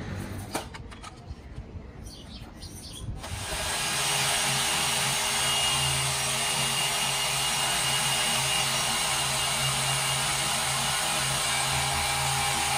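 A high-speed rotary tire buffer with a small abrasive wheel starts about three seconds in and then runs steadily with a hiss and a high whine, roughening the rubber inner liner of a giant mining-truck tire to prepare it for a repair patch. Before it starts there are only a few light knocks.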